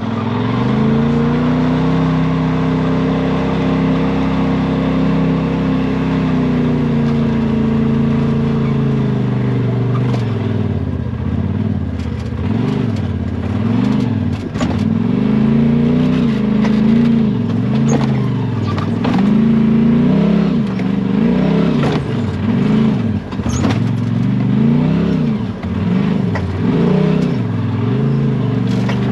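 Side-by-side UTV engine running at a steady speed, then revving up and down over and over from about ten seconds in, with scattered knocks and clatter.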